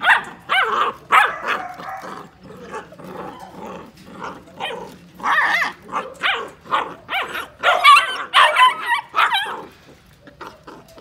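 A pen full of young dapple dachshunds barking and yelping, many short high calls overlapping. The calls are thickest from about five to nine and a half seconds in, then die down near the end.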